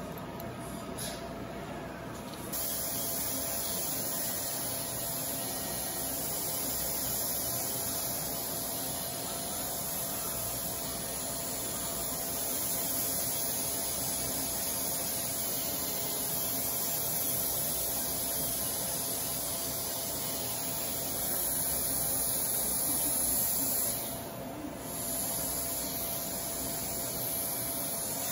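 Dental straight handpiece spinning a white abrasive wheel, grinding down a small piece held in the fingers. It gives a steady high hiss that starts sharply a couple of seconds in and breaks off briefly near the end.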